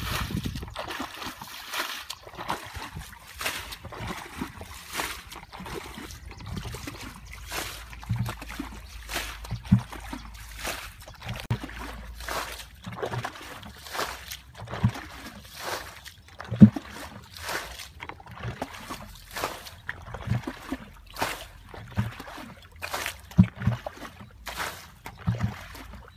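Wet mud and shallow water squelching and splashing as hands dig and scoop through it, in many short irregular splashes, roughly one or two a second.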